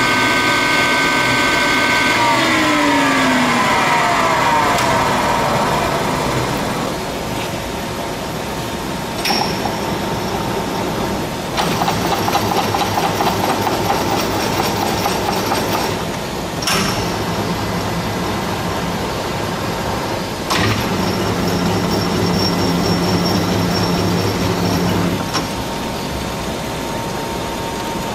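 Warner & Swasey 3A turret lathe's spindle drive running at speed, then winding down with a falling whine about two seconds in. The machine's gearing keeps running after that, broken by several sharp clunks as the carriage apron's levers are worked. Each pair of clunks starts and stops a few seconds of louder running as the feed is engaged.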